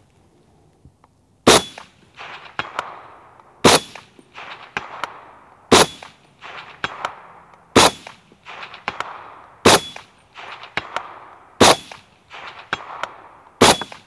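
Suppressed Springfield M1A rifle in .308 Winchester, fitted with an AAC SDN-6 suppressor, fired semi-automatically seven times, about two seconds apart. Each shot is a sharp report followed by a few fainter knocks as it dies away.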